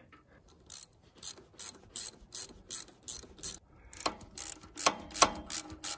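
Hand socket ratchet clicking in short strokes as it tightens a worm-drive hose clamp on a hydraulic hose fitting. There are about three clicks a second, and they grow louder and more uneven in the last two seconds.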